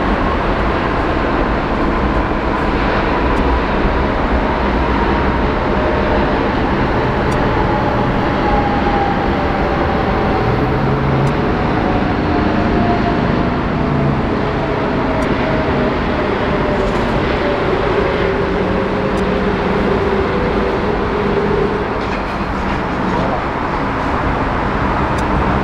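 Airbus A380's Rolls-Royce Trent 900 jet engines rumbling as the airliner slows on the runway after landing. A whine falls slowly in pitch over about the first twelve seconds as the engines spool down.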